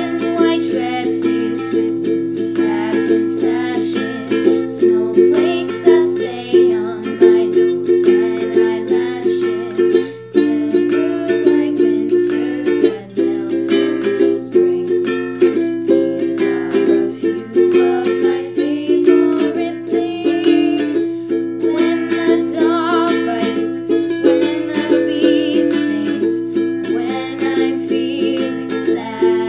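Ukulele strummed in a steady rhythm, chords changing every second or two.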